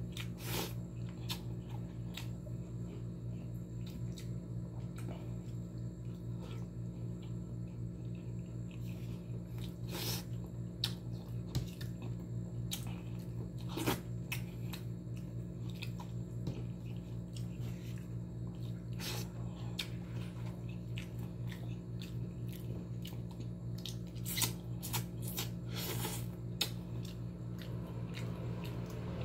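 A person eating fish and rice by hand: scattered wet chewing and lip-smacking clicks, a few of them louder, over a steady low hum.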